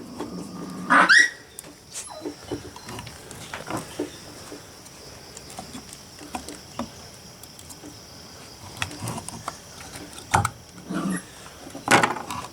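Scattered light clicks and taps of hand work on a small electric water pump as its motor is turned by hand to feel for tightness. A short rising squeal comes about a second in, and a sharper knock near the end.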